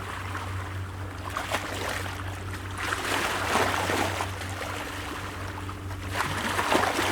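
Sea waves washing and splashing against rocks, swelling in surges every couple of seconds and falling back between them, over a steady low hum.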